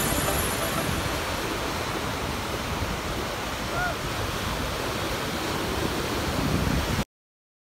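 Sea surf washing up on a sandy beach, a steady rush of small breaking waves. A short faint rising-and-falling tone sounds about four seconds in, and the sound cuts off abruptly near the end.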